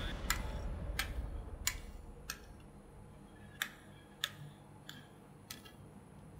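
Metal spatulas clicking and scraping against a frozen metal ice pan as a layer of rolled ice cream base is spread flat. The clicks are sharp and light, coming about once a second.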